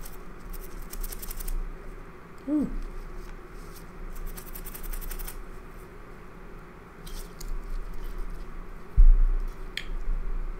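Soft scratching and scrubbing on a small circuit chip as flux residue is cleaned off after hand reballing, with scattered light clicks and a low thump about nine seconds in.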